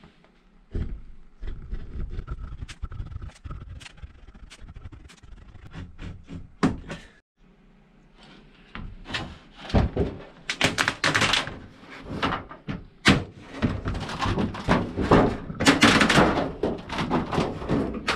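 Thin embossed aluminium sheet being handled. Scattered knocks and taps come first, then from about halfway a dense crackling and rattling as the sheet is lifted and flexed.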